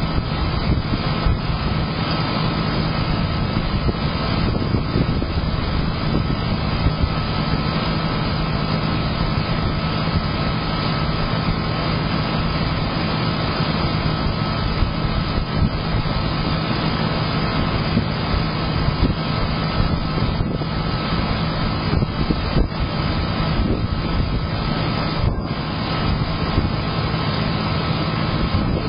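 Steady low roar of storm wind on a Blink security camera's microphone, with a constant low hum underneath.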